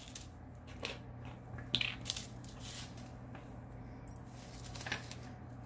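Faint handling noise from sorting diamond-painting drills: small plastic drill bags rustling, with a few light clicks about a second in, around two seconds in and near the end, over a low steady hum.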